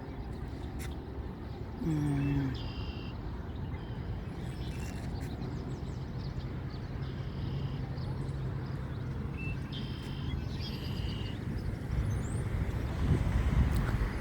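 Outdoor waterside ambience: a steady background wash with a low engine-like hum through the middle, short high bird chirps a few times, and a brief low falling tone about two seconds in.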